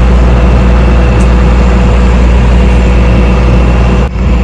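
A large engine idling with a steady low drone, briefly cut off about four seconds in.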